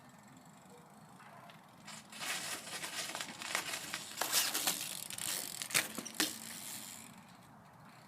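BMX bike tyres rolling and crunching over icy ground, starting about two seconds in and lasting about five seconds, with a few sharp clicks and knocks along the way.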